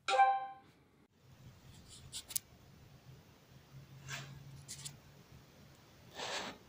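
Blackview BV8000 Pro camera app's start-recording chime, a short tone of about half a second. It is followed by faint room tone with a low hum and a few faint short noises, as heard through the phone's own microphone.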